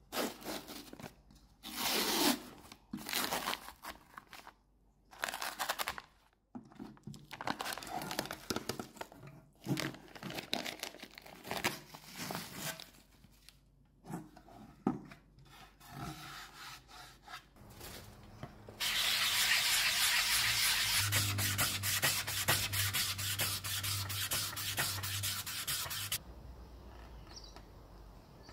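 Peel ply being torn off a cured carbon-fibre repair patch: a series of irregular scratchy tearing rasps. About 19 seconds in, a loud steady hiss with a low hum runs for about seven seconds, then stops.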